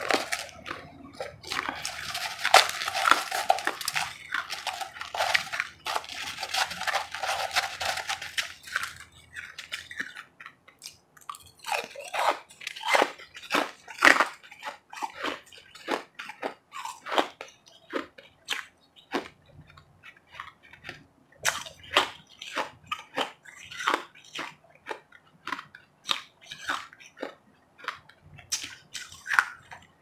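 Crushed, refrozen ice being chewed close to the microphone. A dense stretch of crunching fills the first several seconds, then it breaks into separate crisp crunches, roughly two a second.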